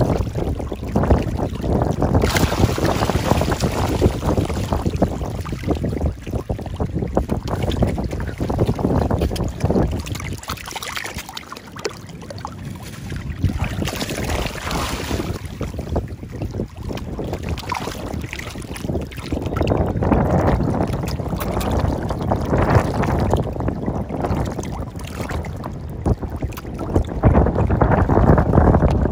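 Wind buffeting the microphone in uneven gusts, over water slapping and splashing as a crowd of mullet thrashes at the surface of a shallow rock pool.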